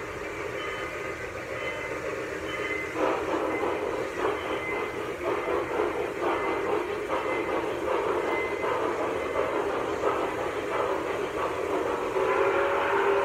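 O-scale model train running on the track, a steady hum with clicks about twice a second from about three seconds in as it rolls along. A held whistle tone sounds near the end.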